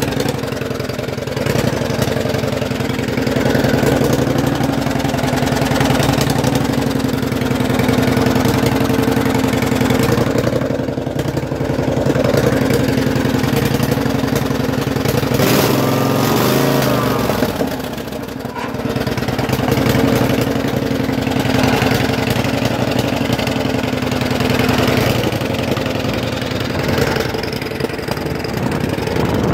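Case 446 garden tractor's twin-cylinder engine running steadily through its two upright exhaust stacks. A little past halfway it wavers and dips briefly, then picks back up.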